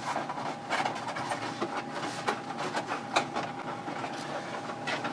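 A cardboard gift box being handled and worked open on a table: irregular clicks, knocks and rustling, with a faint steady tone behind.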